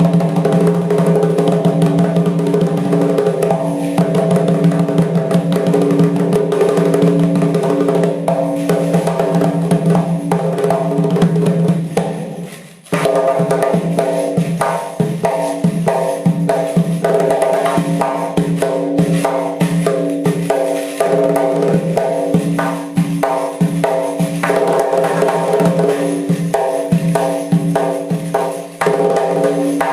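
Doira, the Central Asian frame drum, played in fast rhythmic strokes over music with steady held notes. The music drops out briefly a little under halfway through, then the drumming resumes.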